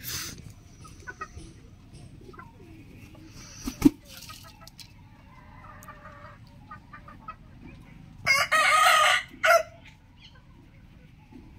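Rooster crowing once, a loud crow lasting about a second and a half near the end. A single sharp knock about four seconds in.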